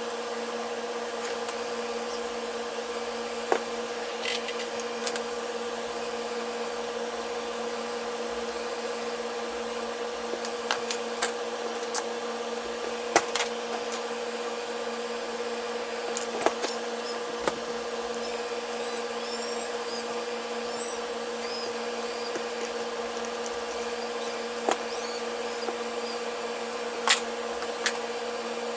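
A small motor humming steadily at a constant pitch, with scattered clicks and taps.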